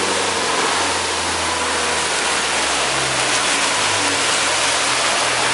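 Motorboat running at speed on its outboard engine: a loud, steady rush of wake water and wind over a low engine hum.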